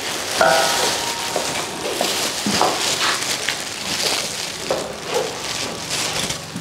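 Dense crackling, rustling noise made of many small clicks, with a brief high-pitched call about half a second in.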